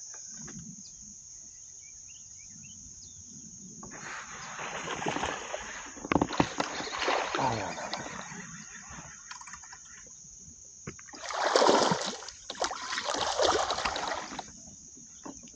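A small largemouth bass, hooked on a chatterbait, splashing and thrashing at the water's surface beside the kayak. The splashing is loudest in the last few seconds, with softer water sounds before it.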